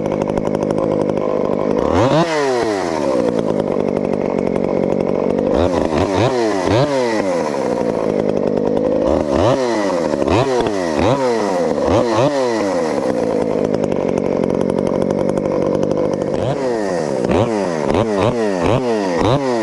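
Modified Craftsman chainsaw with a homemade muffler and custom cold-air intake running at high revs, its engine pitch dipping sharply and climbing back again several times in quick clusters.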